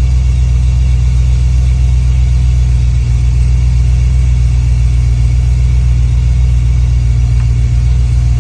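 LS V8 engine under FiTech Ultimate LS fuel injection, idling steadily with an even low rumble.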